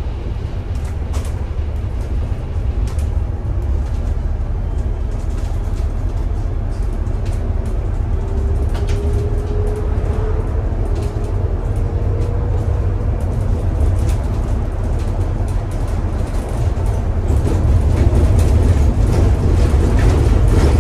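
Bus interior on the move: a steady low rumble of engine and road with scattered rattles and clicks. A faint whine rises in pitch from about 8 to 12 seconds in, and the rumble grows louder near the end.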